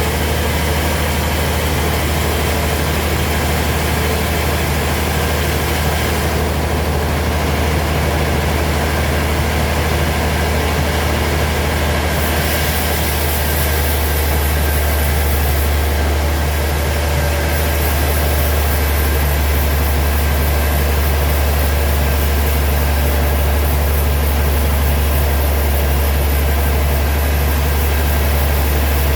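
Sawmill machinery running steadily, a loud low engine drone under a constant mechanical noise, with the high, hissing part of the sound shifting a few times.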